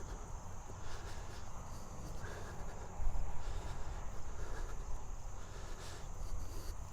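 A steady, high-pitched insect chorus buzzing without a break, with wind rumbling against the microphone.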